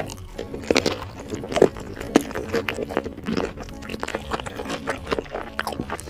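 Close-up mouth sounds of a person biting into and chewing spicy sauce-coated meat: irregular smacks and crunchy bites, the loudest about a second and a half and two seconds in.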